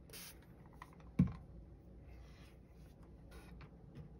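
Small taps and light rustling of hands handling a plastic cup and tools on a work table, with one dull knock about a second in.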